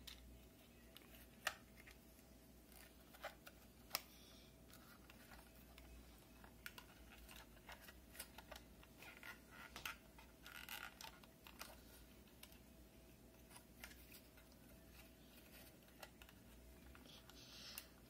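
Near silence with a few faint clicks and scratches: a plastic drive caddy being handled and pressed onto a drive.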